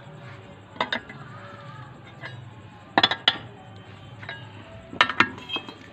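Sharp metallic clanks of steel striking steel, each with a brief ringing. They come once near the start, then as two quick pairs about two seconds apart.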